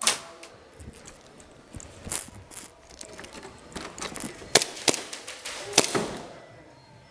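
Airsoft guns firing single shots: about five sharp snaps at irregular spacing, the loudest three bunched between about four and a half and six seconds in, with fainter clicks between them.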